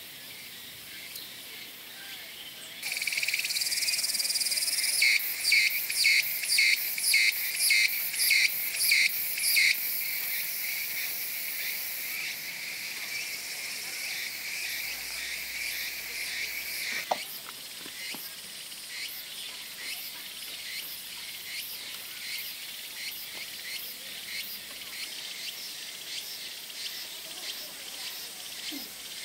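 Insects chirring loudly in a high, shrill band that starts suddenly about three seconds in, pulses about twice a second for a few seconds, then holds steady. About seventeen seconds in it drops abruptly, with a sharp click, to a quieter, rhythmic chirring.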